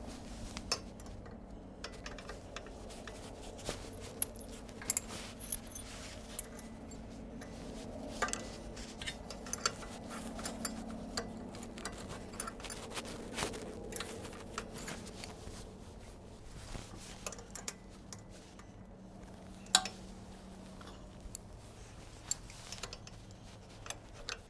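Metal hand tools (wrenches and a ratchet) clinking and clicking against the mower's PTO clutch pulley and bolt as they are fitted and shifted, with one sharper clank near the end, over a faint low hum.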